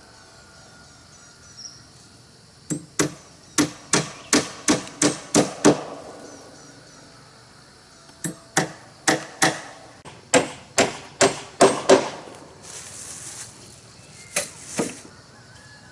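Hammer blows on wood, in two quick runs of about ten strikes each at roughly three a second, then a short scraping sound and two more blows near the end.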